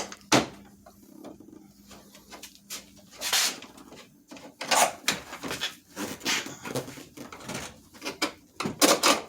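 Irregular knocks, clicks and scrapes of hands handling small hard parts while fitting an LED turn-signal light, loudest near the start and near the end.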